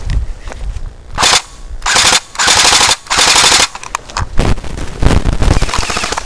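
Airsoft AK rifle fitted with a Guarder blowback kit firing short full-auto bursts, four in quick succession, each a fast rattling string of shots, the longest under a second. Lower thumps come at the start and again in the second half.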